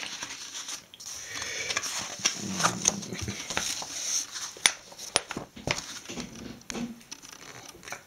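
A paper book page rustling and crinkling as a fold-out sheet is opened out and flattened, with a few sharp ticks in the middle.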